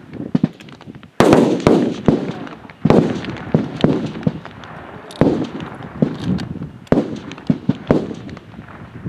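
Rifle shots from many F-Class competition rifles firing along a shooting line, going off irregularly, sometimes two or three close together. Each shot is followed by a short rolling echo.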